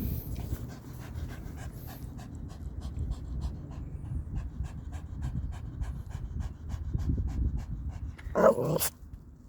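Small Pomapoo dog panting fast and steadily, about three to four breaths a second, with one louder short vocal sound near the end.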